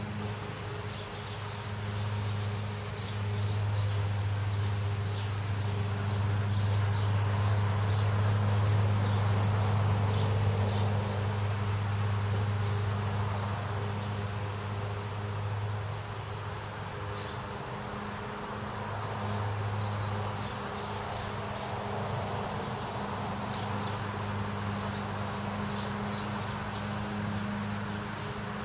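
A car passing on a residential street, its tyre and engine noise swelling for several seconds and then fading, over a steady low hum. Faint high chirps come and go.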